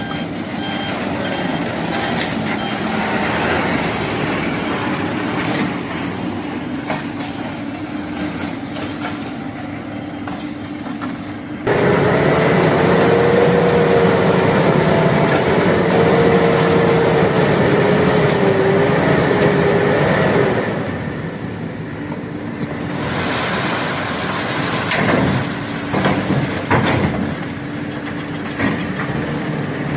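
Backhoe loader's diesel engine running. About twelve seconds in it suddenly gets louder, with a wavering whine for about nine seconds, then drops back to the steady running sound, with a few knocks near the end.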